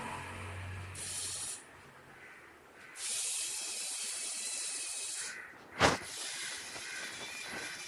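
Servo-driven probe mechanism of an automatic PCB test machine running an auto test, with a hissing noise in stretches that start and stop and a low hum in the first second or so. There is one sharp click a little before six seconds in.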